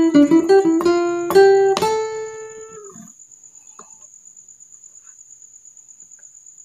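Acoustic guitar picking a single-note dangdut melody with a pick. The notes stop about two seconds in and the last one rings out and fades, leaving only a faint, steady high-pitched tone in the background.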